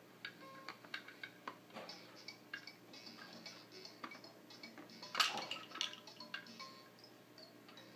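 Hanging plastic toys and rings on a baby play gym clicking, rattling and clinking as an infant bats at them. The sounds come irregularly, with a louder flurry about five seconds in.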